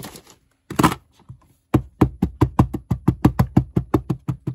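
Wood-mounted rubber stamp being dabbed rapidly onto a black ink pad to ink it: a fast, even run of taps, about seven a second, starting near the middle. A brief scuffing noise comes about a second in.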